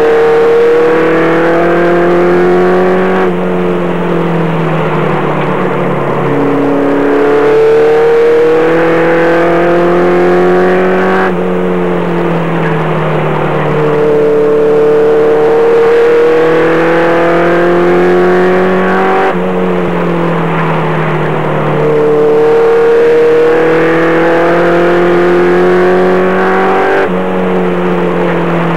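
Race truck's engine heard from inside its cab at racing speed, its pitch repeatedly climbing then dropping away, with a cycle about every eight seconds as it laps the short oval.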